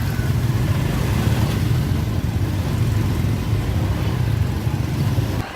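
Steady low rumble of running engines at a river ferry crossing. It cuts off suddenly just before the end.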